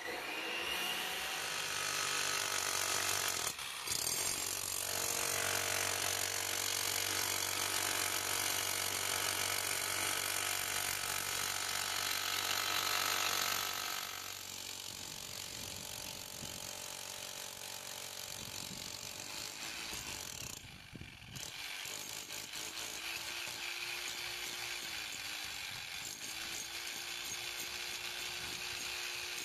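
Steady machine noise for roughly the first half, then a corded electric demolition hammer chiselling into a concrete slab with rapid, even blows, pausing briefly about two-thirds of the way in.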